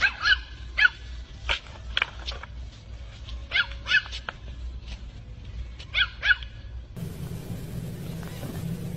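Small white dog yapping at tigers through a chain-link fence: short, high-pitched barks, singly and in quick pairs, about nine in the first six and a half seconds.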